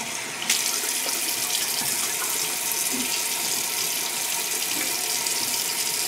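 Bathroom sink tap running steadily into the basin while alum is rinsed off the face and neck after a shave.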